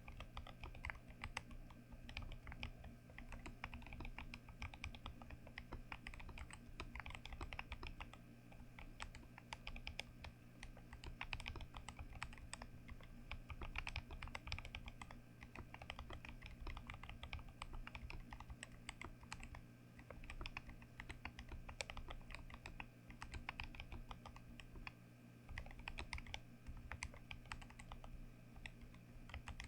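Continuous fast typing on a mechanical keyboard built for a deep 'thock' sound, many keystrokes a second with a short pause near the end.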